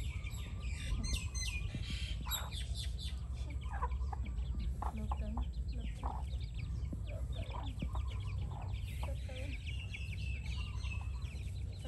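Chickens clucking and young chicks peeping in short, frequent high chirps as they feed, over a steady low rumble.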